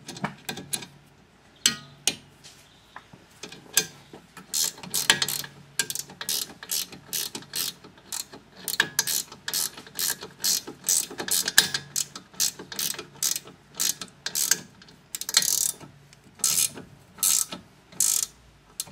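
Metal spanner clicking in short strokes as it tightens the nut of an auxiliary oiler fitting on a chainsaw guide bar: a run of sharp metallic clicks, sparse at first and then coming two or three a second.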